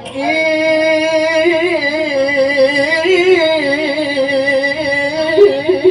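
A male reciter's voice in melodic Quran recitation, amplified through a microphone, holding one long ornamented note whose pitch wavers and swings upward a little about halfway through.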